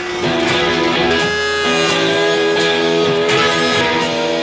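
Background music led by guitar over a steady beat.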